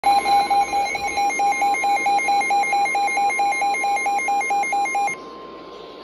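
NOAA weather alert radios, among them a Midland, sounding their alarm for a Severe Thunderstorm Warning: rapid beeping, about four beeps a second, over the steady warning alarm tone of the weather radio broadcast. The beeping cuts off about five seconds in, leaving the steady tone playing more quietly.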